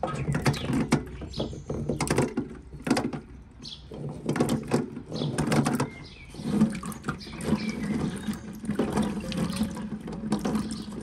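Water splashing and sloshing in a metal basin as hands stir and rub green plums to wash them, in irregular splashes.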